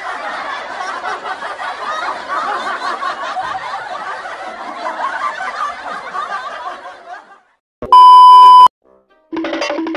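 A crowd laughing, a dense laugh-track sound effect that fades out about seven seconds in. After a short gap comes a loud steady beep, under a second long: the test tone of TV colour bars. Music starts right at the end.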